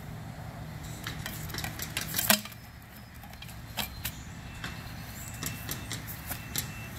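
Soil crunching and scraping with scattered sharp clicks and knocks as a Gopher Hawk mole-trap probe and ream tool are worked down into lawn soil to open a mole tunnel. The loudest knock comes a little over two seconds in.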